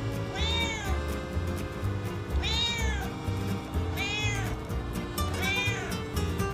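Calico cat meowing four times in short, high-pitched, kitten-like baby-voice meows, each rising and then falling in pitch, over background music with a steady beat.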